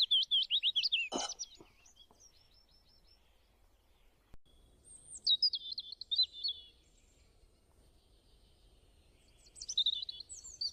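A small bird chirping: a fast run of high chirps over the first second or so, then two shorter chattering phrases about five and ten seconds in. A faint click about a second in.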